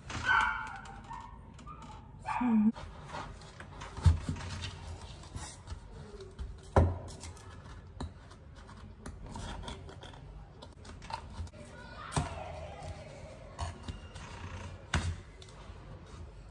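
Foam door draught stopper being handled and pushed into place at the foot of a door: a few sharp knocks and thuds against the door and tile floor, with rustling and handling noise in between.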